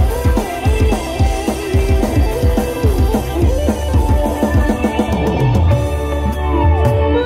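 Kecimol band music, Lombok street dangdut, played loud through a large outdoor sound system. Fast drumming and heavy bass run under a bending melodic lead, with a falling glide near the end.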